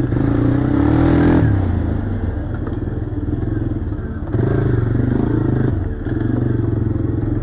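ATV engine running under throttle while riding. It climbs in pitch for about a second and a half, drops back, then picks up again about four and a half seconds in.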